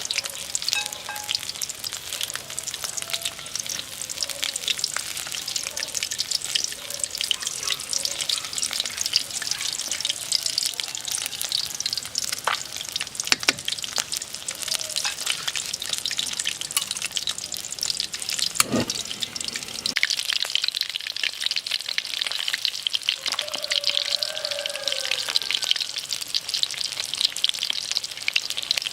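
Battered loach frying in hot oil, a steady dense crackle and sizzle with a single knock a little past halfway.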